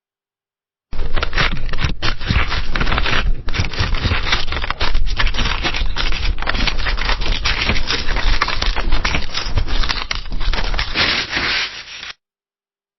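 Paper pages of a book being turned in quick succession: a continuous, dense rustling and crackling of paper that starts about a second in and cuts off abruptly near the end.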